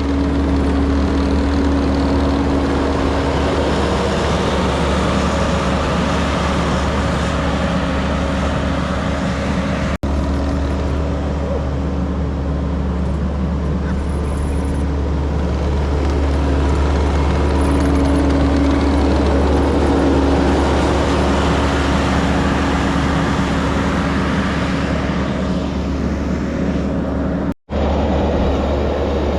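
Steady low rumble of a motor vehicle's engine and road noise while driving, briefly cutting out twice.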